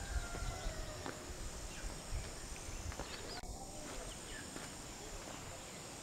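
Outdoor rural ambience: scattered faint bird chirps and calls over a steady high insect buzz, with a low, uneven rumble underneath.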